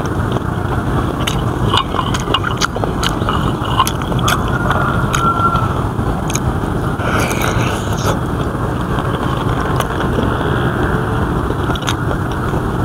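Close-miked chewing of crunchy deboned chicken feet, with many short crisp clicks of biting and mouth sounds, over a steady low rumble.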